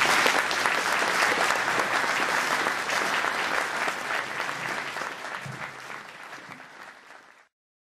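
Audience applauding, a dense patter of many hands that slowly fades and then cuts off suddenly near the end.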